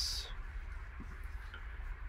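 Low steady hum with a soft double click about a second in: the randomize button being clicked on a computer.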